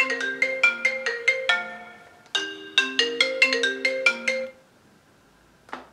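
Mobile phone ringing with a marimba-style ringtone, the sign of an incoming call. The short struck-note melody plays through twice and stops about four and a half seconds in, followed by a single short click near the end.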